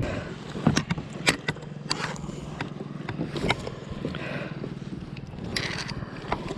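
Irregular sharp knocks and clicks of gear being handled on a plastic pedal kayak, over a steady low drone.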